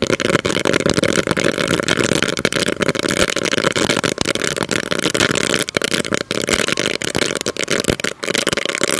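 Roll caps and sparklers packed inside a pressure cooker burning together: a loud, dense, continuous crackle of rapid pops over a rushing hiss of flame.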